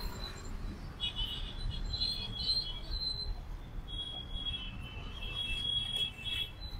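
Street ambience: a steady low traffic rumble, with faint high-pitched chirps coming and going over it.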